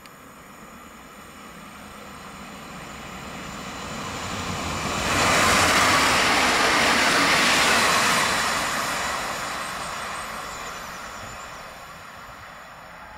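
Single EN63A (Pesa Elf) electric multiple unit passing at speed: its running noise swells as it approaches, is loudest about five to eight seconds in as it goes by close, then fades as it draws away.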